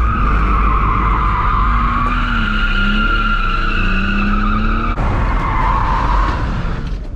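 BMW E46 drifting: a long, loud tire squeal with the engine running underneath. The squeal shifts in pitch, changes sharply about five seconds in, and fades a little near the end.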